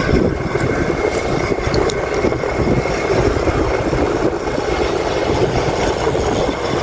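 Wind rushing over the microphone as an e-bike with a 1000 W front hub motor run on 36 V rides flat out, with a faint steady high whine from the motor.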